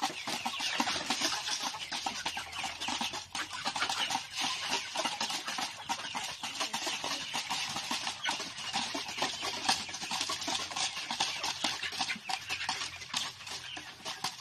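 A flock of hens clucking as they crowd around to feed, over a constant patter of quick clicks.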